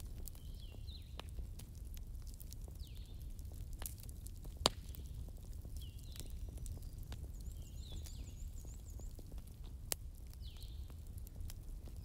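Wood fire burning with a low steady rumble and a few sharp crackling pops, the loudest about four and a half seconds in. Faint high chirps recur every two to three seconds above it.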